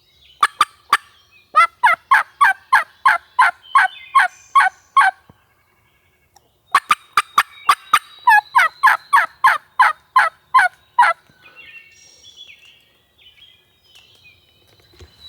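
A loud series of turkey yelps, about three sharp, falling notes a second, in two runs of a dozen or so notes with a brief silence between. Faint chirps follow near the end.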